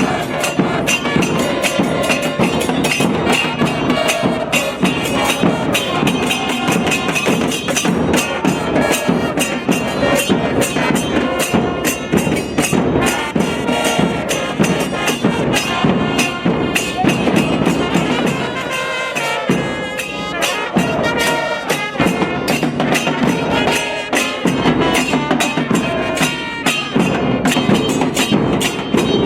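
Music with a busy, steady percussion beat; the bass drops out briefly about two-thirds of the way through.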